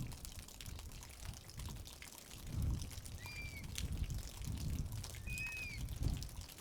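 Water trickling and pouring, with a bird giving two short whistled calls, about three and five seconds in.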